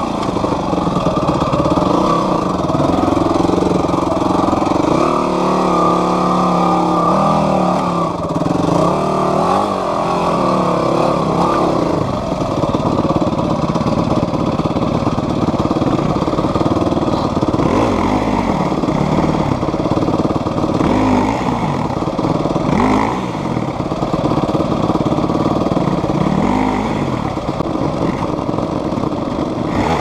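Dirt bike engine revving up and down with short blips of throttle for the first twelve seconds or so, then running more steadily with a few brief revs.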